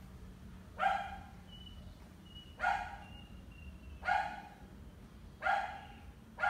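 A dog barking at a steady pace, five single barks about a second and a half apart.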